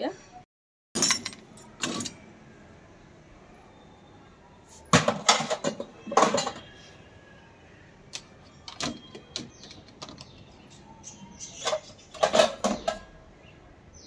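Dishes and steel utensils clinking and knocking against a dishwasher's wire racks as the racks are pulled out and loaded. The knocks come irregularly, with clusters about five to six seconds in and again near the end.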